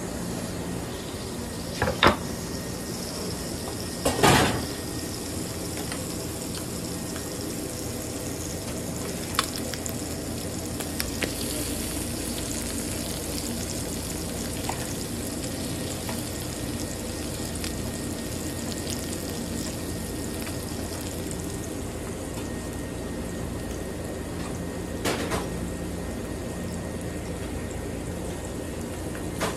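Octopus and chickpeas in a hot clay pan sizzling steadily, with two loud knocks a few seconds in and a few light clinks of a fork and knife later on.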